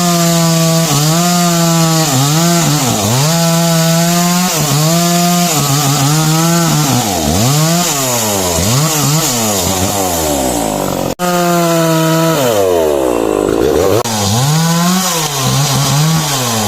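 Small two-stroke power-tool engine, such as a chainsaw or brush cutter, running at high revs and repeatedly bogging down in pitch and recovering, as it does under cutting load. The sound drops out abruptly for an instant about eleven seconds in, then carries on.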